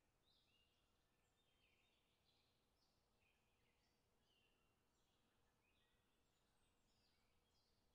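Near silence: faint room tone with a steady low hum and very faint, irregular high chirps.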